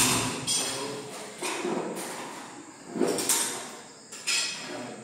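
A series of sharp knocks, roughly one a second at uneven spacing, each dying away with a reverberant tail in a bare, hard-floored room.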